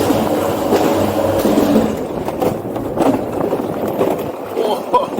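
Alpine coaster cart running down its steel pipe track, its wheels rumbling and scraping steadily.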